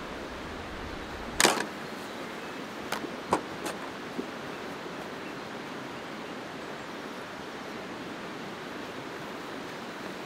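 Steady rush of a river. A sharp knock comes about a second and a half in, followed by a few lighter clicks over the next couple of seconds.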